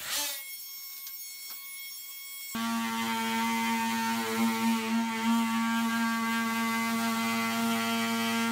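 Handheld corded power cutting tool whining steadily as it cuts into the drywall ceiling. It starts suddenly about two and a half seconds in, its level wavering a little under load.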